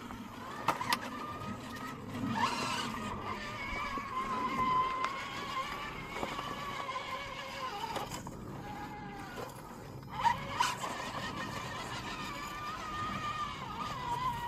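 Electric motor and gearbox of a class 2 RC rock crawler whining as it crawls over rock. The pitch wavers with the throttle and the whine drops away briefly about eight seconds in. A few sharp knocks come through, the loudest about ten seconds in.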